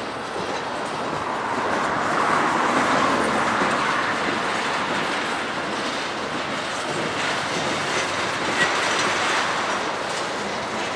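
Freight train of tank cars rolling past: a steady rumble of steel wheels on rail, with wheels clicking over the rail joints.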